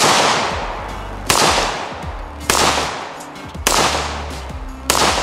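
Five rifle shots from an AR-15 in 5.56 fired with a bare muzzle, no compensator, evenly paced about 1.2 seconds apart, each sharp crack trailing off in a long echo.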